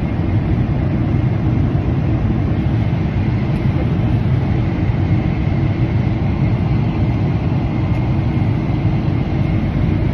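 Airliner cabin noise: a loud, steady rumble with a faint high steady tone above it.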